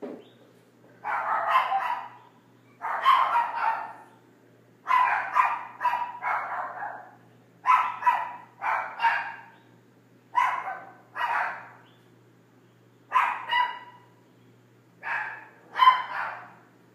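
A dog barking repeatedly, in short runs of two or three barks every couple of seconds.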